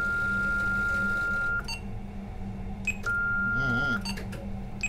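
Samyung SRG-3150DN MF/HF DSC radio sounding a steady high electronic tone that cuts off about a second and a half in. It is followed by short keypad beeps about once a second as its buttons are pressed, and the tone comes back for about a second between them.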